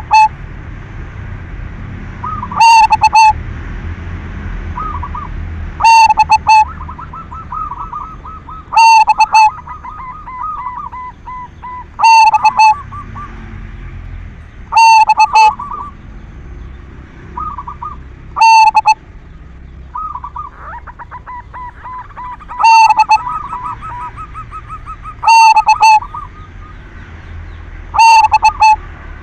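Zebra dove (perkutut) song: a loud, short cooing phrase repeated about every three seconds, with softer cooing notes in between.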